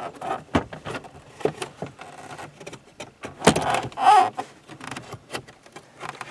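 A digital instrument cluster and its dash panel being handled and pushed into place in a third-generation Camaro's dash: scattered clicks, knocks and scrapes of parts fitting together. The loudest knock comes about three and a half seconds in, followed by a brief rubbing scrape.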